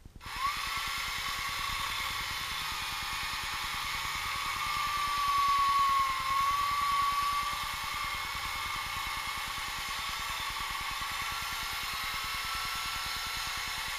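A steady, high-pitched mechanical whine that starts suddenly just after the opening and wavers slightly in pitch, like a small motor or power tool running.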